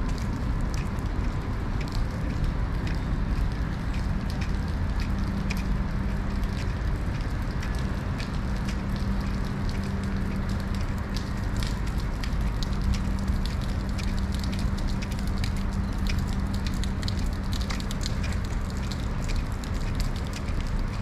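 Steady rain falling on wet paving, with many separate drops ticking close by over a low rumble. A low steady hum comes in about four seconds in and fades near the end.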